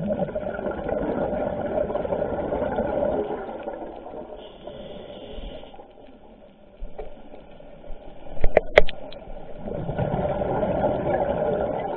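Scuba diver's regulator breathing underwater: two long rushes of exhaled bubbles, one at the start and one from about three-quarters of the way in, with a quieter inhale between. A few sharp clicks about eight and a half seconds in are the loudest sound.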